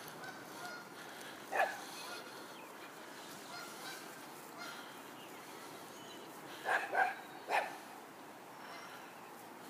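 Small terrier barking in short, sharp barks: one about a second and a half in, then three in quick succession near seven seconds.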